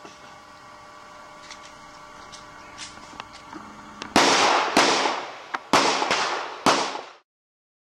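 Handgun shots fired in quick succession: a string of about five loud cracks over some three seconds, each dying away quickly. A few faint, sharp cracks come before them.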